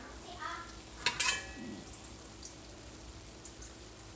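Batchoy frying in a pan with a steady sizzle, and a brief sharp clatter of metal about a second in.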